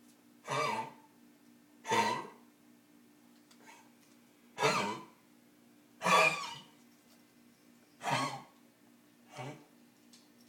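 An animal coughing over and over, about seven short coughs each a second or two apart, one of them much fainter, with a faint steady hum underneath.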